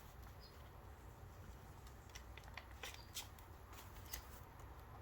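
Faint handling of paper craft pieces: light rustles and a scattering of small ticks and clicks, most of them between about two and four and a half seconds in, over a low hum.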